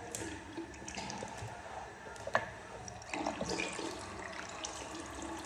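Water running and splashing, with scattered small clicks and one sharp knock about two and a half seconds in.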